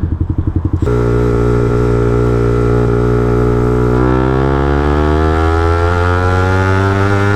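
Suzuki GSX-R125's single-cylinder four-stroke engine ticking over with a pulsing beat, then pulling away on the throttle. The revs hold steady for a few seconds, then climb smoothly as the bike accelerates in gear.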